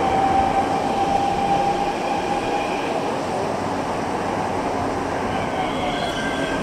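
Mexico City Metro train running, a steady rumble with a high whine that drifts slightly lower near the end.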